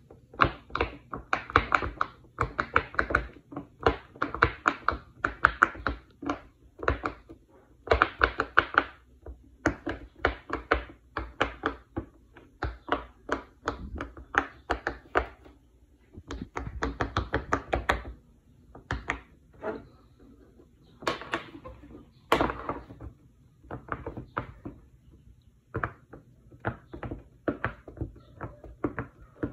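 Silicone pop-it bubble fidget toy being popped by fingers: short pops in quick runs, several a second, with brief pauses between runs.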